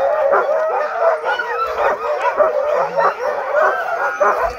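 A chorus of many harnessed sled huskies barking, howling and yipping all at once, overlapping without a pause: the excited clamour of sled dogs eager to run before the sled sets off.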